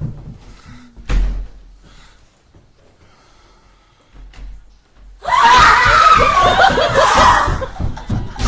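A few soft knocks, then about five seconds in, loud screaming mixed with shrieking laughter breaks out and carries on to the end.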